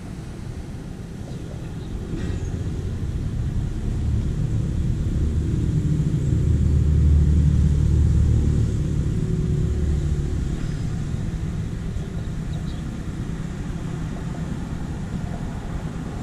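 Low rumble of a passing vehicle that swells from about four seconds in, peaks around seven to eight seconds, and fades away, over a steady low background rumble.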